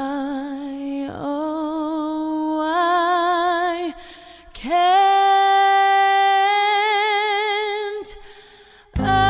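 A woman singing long, held notes with strong vibrato, almost unaccompanied, in three phrases with short breaks about four and eight seconds in. A fuller musical backing comes in right at the end.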